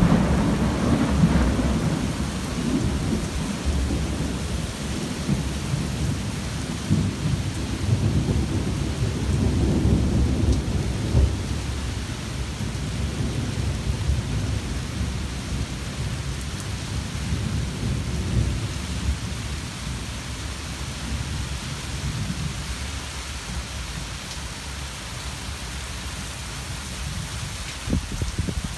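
Thunder rumbling low and long over steady heavy rain. The rumble breaks in with a jolt at the start, stays strong for about the first ten seconds, then slowly dies away under the even hiss of the rain.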